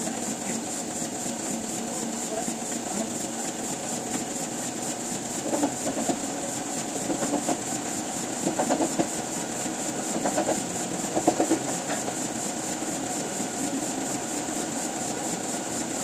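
Printing press machinery running with a steady, fast, rhythmic mechanical clatter. A few louder bursts of sound come in the middle.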